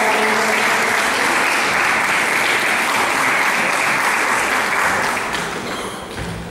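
Audience applauding steadily, dying away over the last second or so.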